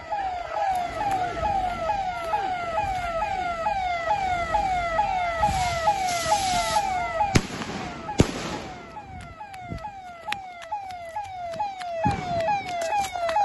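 Electronic siren repeating a falling tone about three times a second without a break. A hiss rises about six seconds in, two sharp bangs follow about a second apart, and scattered small pops crackle through the last few seconds.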